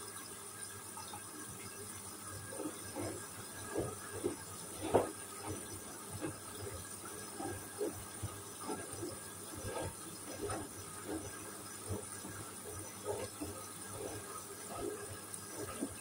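Hoover front-loading washing machine drum tumbling wet laundry through soapy water. The load starts sloshing and splashing about two seconds in, in irregular surges, the loudest about five seconds in.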